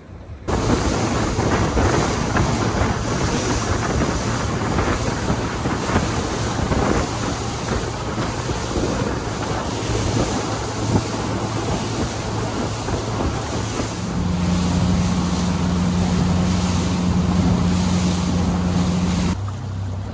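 Small aluminium plate boat running under outboard power, with wind buffeting the microphone and water rushing against the hull over a steady low engine note. About fourteen seconds in the engine settles into a stronger, steady hum, and the noise cuts off suddenly near the end.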